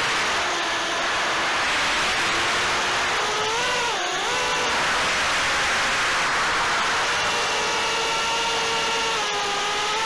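Brushless motors and propellers of a 4S FPV quadcopter (Booster 2207 2500kv motors), heard through its onboard Caddx Turtle V2 camera microphone. They make a harsh, tinny whine over a steady rush of prop wash and wind. The whine swoops up and down with the throttle about four seconds in and rises again near the end.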